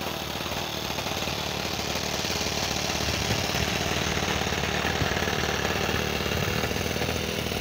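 Small O.S. FS-26S four-stroke glow engine of a 1/12-scale live diesel locomotive running steadily with a rapid, even firing beat, growing louder as the loco comes close.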